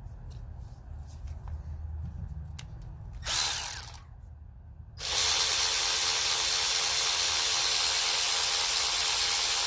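Cordless 3/8-inch electric ratchets with brushed motors run with no load in a speed comparison. One spins briefly about three seconds in; after a short pause a second run starts about five seconds in and holds steady to the end.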